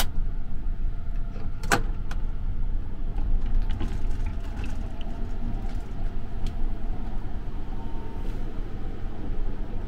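Steady low rumble of the Sunrise Express sleeper train running, heard from inside the carriage. A single sharp click about two seconds in comes from the compartment door's lock handle being released, with a few light rattles as the door is opened.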